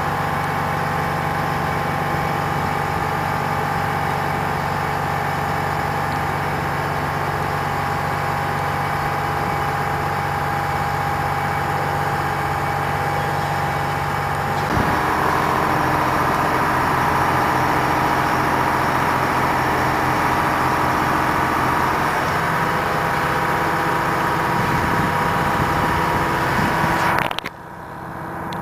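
Truck-mounted crane's engine running steadily while it holds a heavy dump truck body aloft. About halfway through the engine note changes and gets slightly louder as the crane works the load round, and the sound drops away abruptly just before the end.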